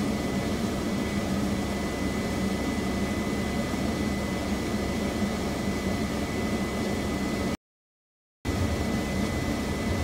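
Steady drone of heavy construction machinery running, with a thin high whine over it; the sound cuts out completely for about a second near the end.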